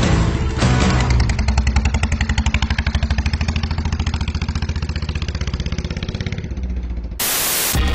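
Vento Thunderstar Custom 250 motorcycle engine running with a quick, even exhaust beat as it pulls away, fading out near the end. About seven seconds in, a sudden burst of hiss cuts in.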